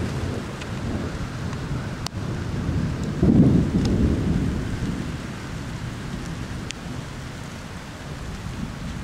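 Thunder rumbling in a heavy thunderstorm, swelling into a louder roll about three seconds in, over steady rain with a few sharp drop ticks.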